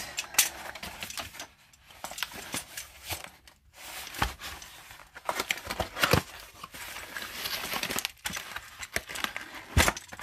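Cardboard boxes and plastic packaging being handled: a box slid out from among cardboard cartons and opened, with irregular scraping, crinkling and a few sharp knocks.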